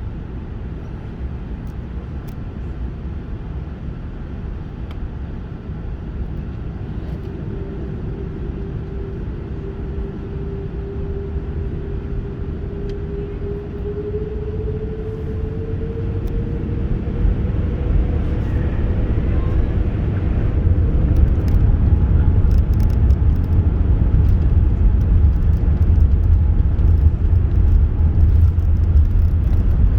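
Airbus A380's Rolls-Royce Trent 900 engines heard from inside the cabin, spooling up for the takeoff roll. A slowly rising whine sits over a low rumble that grows much louder from about halfway through.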